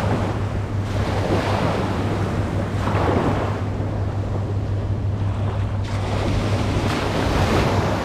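Small ocean waves breaking and washing in shallow surf, with wind buffeting the microphone. The wash swells a few times: about a second in, around three seconds in, and again near the end.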